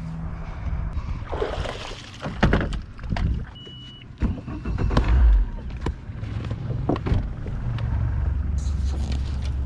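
Boat motor running steadily, with irregular knocks and thumps; the loudest thump is about five seconds in.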